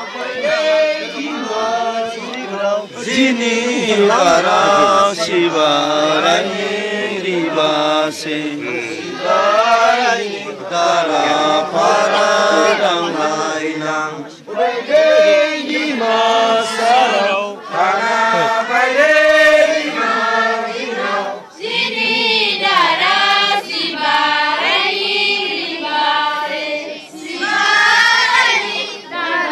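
A group of voices singing a chant together in unison, with long held notes that rise and fall and short pauses between phrases.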